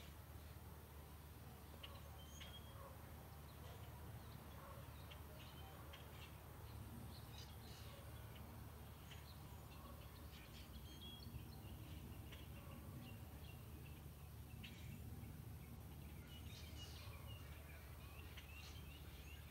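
Faint birdsong: scattered short chirps and calls from small birds, over a low steady hum.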